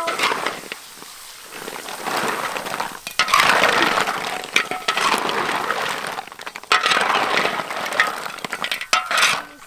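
Snail shells clattering and clinking against each other, a metal spatula and the wok as they are stirred in curry, a dense rattle of many small clicks that gets louder a few seconds in.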